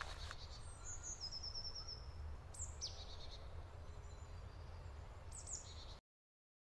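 Quiet forest ambience with small birds calling: a short rapid trill about a second in, a few high descending notes near the middle, and another call near the end, over a faint low rumble. The sound cuts off abruptly to silence near the end.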